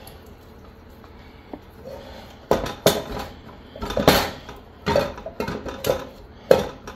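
Stainless steel mixing bowl clanking and rattling as biscuit dough is pressed and scraped around inside it by hand. It is quiet for the first couple of seconds, then comes an uneven run of sharp knocks.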